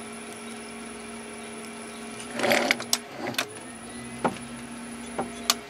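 TV-16 lathe running with a steady hum while a die cuts an M2.5 thread on a small spinning rod. About two and a half seconds in there is a brief scraping rush, followed by several sharp clicks, and the hum stops with a click near the end.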